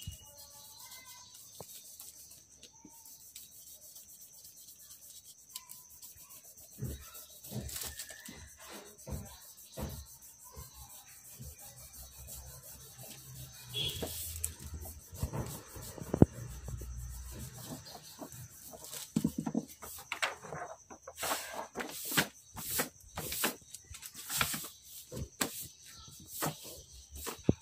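Rubber eraser rubbing back and forth over a paper drawing page, cleaning off stray pencil lines, in irregular strokes that grow louder and come in quick runs in the last several seconds. There is one sharp tap about halfway through.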